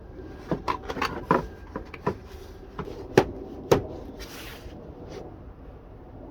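Hard plastic clicks and knocks as the Honda Pilot's rear light housing is lined up by its tabs and pushed back into place. Two sharper snaps come a little past three seconds in, followed by a brief scrape.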